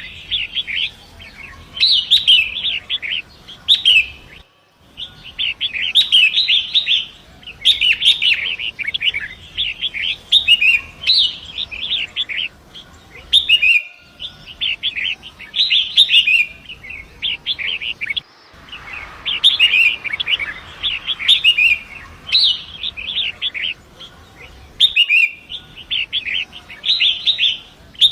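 Long-tailed shrike (pentet) singing: repeated bursts of fast, scratchy, high chattering phrases a second or two long, with short pauses between them, over a faint steady rush of river water. The sound cuts out for a moment about four times.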